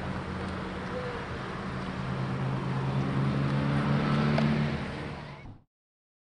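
A motor vehicle's engine running amid outdoor traffic noise, a steady low hum that grows louder from about two seconds in; the sound cuts off suddenly near the end.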